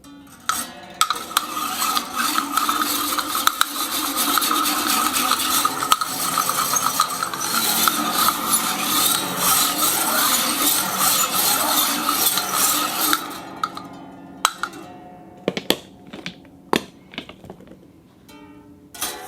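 A small ball rolled round and round inside a glass cup: a continuous rolling rattle with the cup ringing along at one steady pitch, lasting about twelve seconds. It then dies away, and a handful of separate sharp clinks follow near the end.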